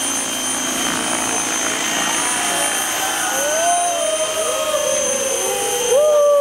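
Radio-controlled MD 500 scale model helicopter in flight: a steady high whine from its motor and rotors. From about halfway a pitched tone slides slowly down, then jumps higher and louder near the end.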